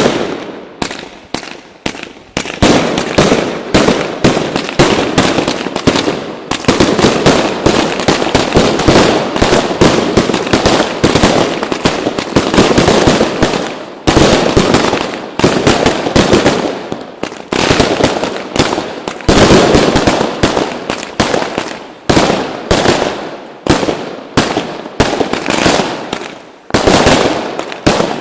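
Lesli consumer fireworks going off in a dense, unbroken string of loud bangs and reports, several a second, with only a brief lull about two seconds in.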